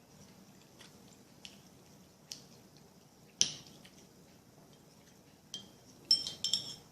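Cutlery tapping and scraping on a dish while eating: a few scattered light clicks and one sharper clink, then a quick cluster of ringing clinks near the end.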